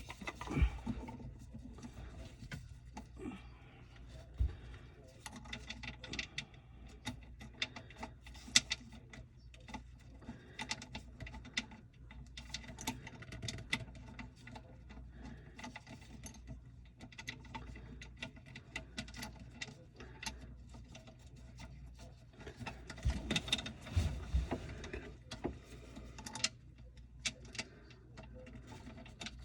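Irregular light clicks, taps and small rattles over a faint steady low hum, with a cluster of louder knocks about 23 to 25 seconds in.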